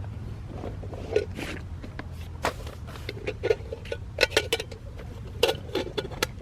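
Irregular clicks and knocks of small hard objects being handled, coming in quick clusters about four and five and a half seconds in, over a steady low rumble.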